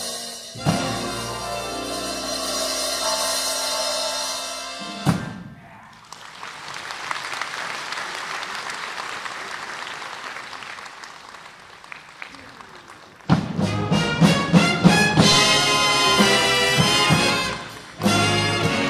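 Big band brass and drums hold a final chord that ends on a sharp hit about five seconds in, followed by several seconds of audience applause. About thirteen seconds in, the band starts the next tune with loud, rhythmic brass hits over the drum kit.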